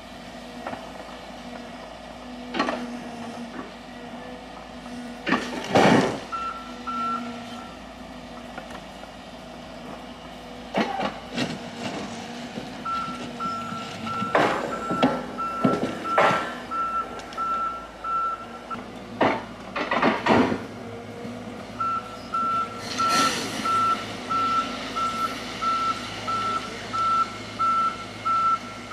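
Road-rail excavator engine running steadily, its reversing alarm beeping in repeated stretches of evenly spaced beeps. Sharp metallic clanks and knocks of steel rail being shifted come at intervals, the loudest about six seconds in.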